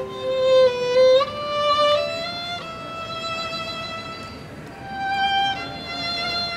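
Solo violin playing a slow song melody one note at a time, moving through several notes in the first two seconds, then holding one long note before moving on again.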